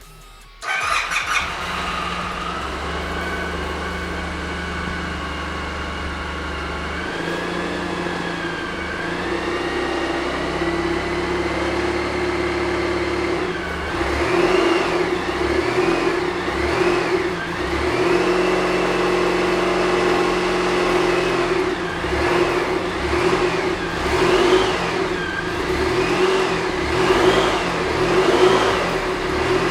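2008 Suzuki Burgman 650 Executive's parallel-twin engine starting about half a second in and settling to a steady idle. About halfway through it is revved in three short blips, idles again, then is blipped in a quick series of about one rev a second through the last third.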